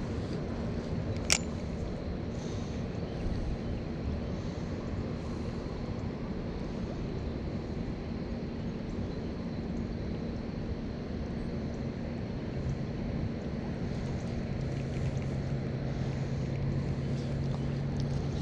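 Steady low motor hum with a constant low tone; a second, lower tone joins about twelve seconds in. A single sharp click comes about a second in.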